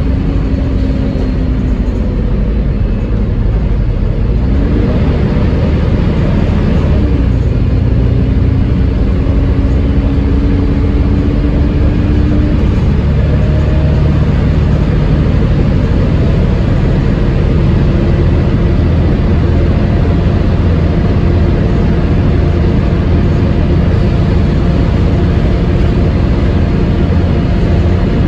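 Wright Gemini double-decker bus with a Voith automatic gearbox driving along, its drivetrain making a loud, steady whine of the kind enthusiasts call 'hoovering' over a low engine rumble. The whine's pitch shifts briefly a few seconds in as the bus changes speed.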